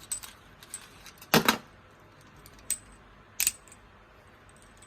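Hard parts of a phone holder clicking and knocking together as it is taken apart by hand. There are a few light clicks, a loud double knock about a second and a half in, a single click, and another double knock near three and a half seconds.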